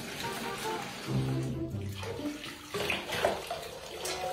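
Water poured from a cup and splashing over a dog in a foamy bathtub, over background music with held low notes.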